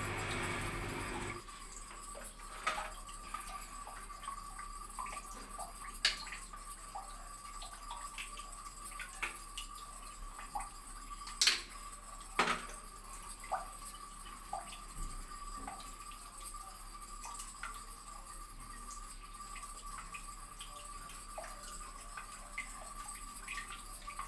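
Water running briefly and cutting off abruptly about a second in, then scattered drips and light clicks over a faint steady whine.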